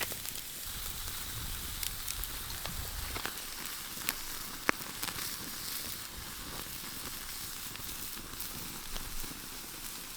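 Burgers sizzling over a wood campfire: a steady hiss with scattered crackles and pops, the loudest pop about halfway through.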